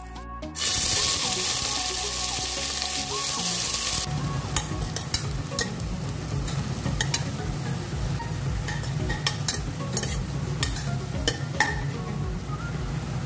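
Sliced onions frying in hot oil in a stainless steel pressure cooker: a loud sizzle starts suddenly about half a second in and cuts off near four seconds, followed by a steadier sizzle. Through the second part a metal spoon stirs the onions, clinking and scraping against the steel pot many times.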